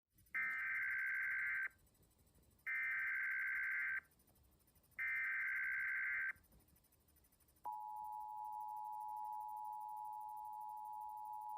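Emergency Alert System SAME header: three identical bursts of a buzzy data tone, each just over a second long and about a second apart, announcing an incoming alert. About two-thirds of the way through, the steady two-tone EAS attention signal starts, a little quieter than the bursts.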